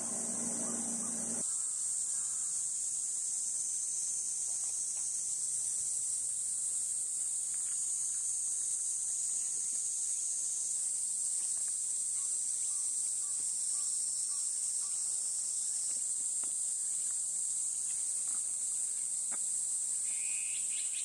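Steady, high-pitched chorus of insects, shrilling without a break. A short high note sounds near the end.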